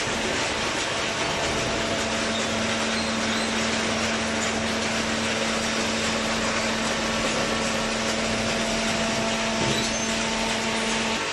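Hydraulic baler running: a steady mechanical din with a constant hum that sets in about a second in and stops near the end.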